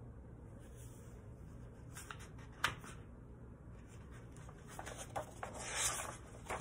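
Pages of a large picture book being handled and turned: a single sharp tap about two and a half seconds in, then paper rustling and sliding near the end.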